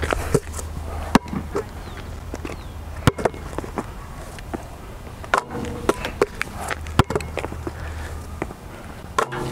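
Basketball bouncing on an outdoor asphalt court: sharp single bounces every second or two, mixed with sneaker steps and scuffs on the asphalt.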